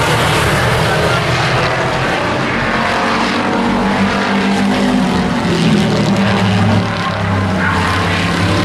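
Engines of several racing pickup trucks running hard as the pack passes, a loud continuous drone whose pitch shifts up and down, climbing about midway as they accelerate.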